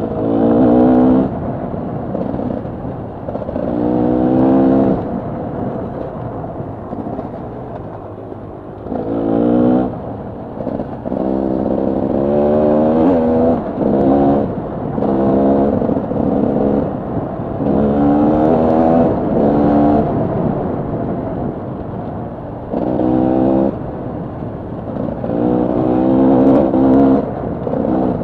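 Dirt bike engine heard from on the bike, revving up in repeated bursts of throttle, each rising in pitch, with lower rougher running between the bursts as the rider rolls off.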